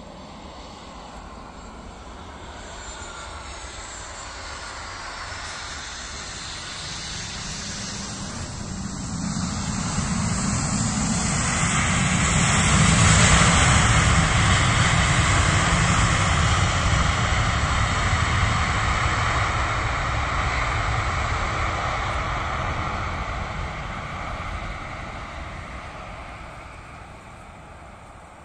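A jet airliner's engines roar, growing steadily louder as the aircraft comes in. The roar peaks about halfway through, as the aircraft is on the runway, then slowly fades as it moves away. On the approach there is a brief sweeping, phasing hiss.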